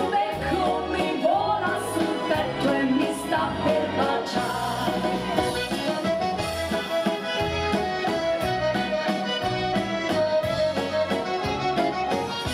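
Accordion-led instrumental waltz break in Italian ballroom-orchestra style, with a steady bass-and-chord accompaniment.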